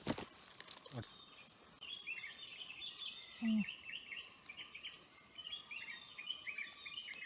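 Small birds chirping in quick, repeated short notes, thickening about two seconds in. Two sharp clicks come near the start, and a brief low sound comes about halfway through.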